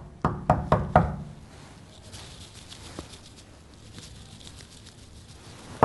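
Knuckles knocking on a wooden door: about five quick raps in the first second, then quiet room sound.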